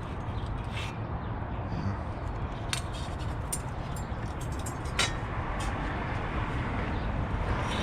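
Scattered light clicks of bicycle headset parts being handled as the front end is taken apart, one louder about five seconds in, over a steady low background rumble.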